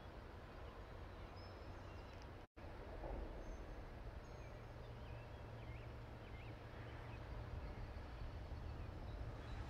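Outdoor ambience: a steady low rumble with a few faint, short bird chirps. It drops out for an instant about two and a half seconds in.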